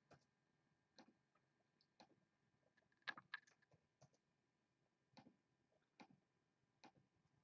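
Faint, scattered clicks of a computer mouse and keyboard, roughly one a second, with a quick run of several clicks about three seconds in.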